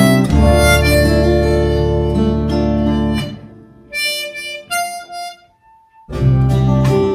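Diatonic harmonica in C playing a melody with an acoustic guitar backing track. The music stops about three seconds in, a few single harmonica notes follow, then there is a brief near-silent gap before the music starts again about six seconds in.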